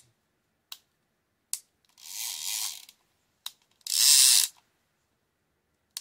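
Shimano TLD 30 two-speed trolling reel's ratchet clicking as the reel is worked by hand: two short runs of rapid clicking, about two seconds and about four seconds in, with a few single clicks between them. The reel has just had its stuck anti-reverse dog spring fixed and runs smoothly without reversing.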